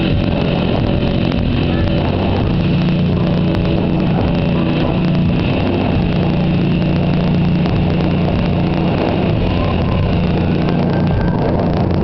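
Live rock band playing loud, with distorted electric guitar, bass guitar and drums, overloaded in the recording. A low note is held through most of it.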